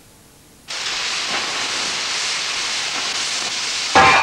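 Steam locomotive letting off steam: a loud steady hiss that starts abruptly under a second in. Near the end a loud metallic clang rings on and fades.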